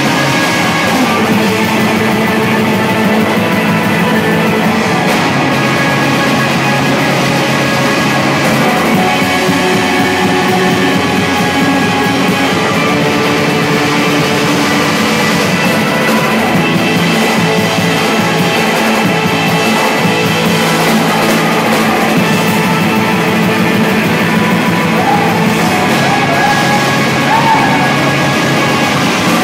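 Black metal band playing live: electric guitars and a drum kit at full volume, a dense, unbroken wall of sound with steady loudness throughout.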